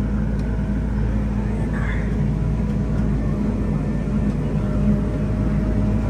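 Large farm tractor running steadily while pulling a loaded grain cart, heard from inside the cab as a constant low engine and drivetrain hum.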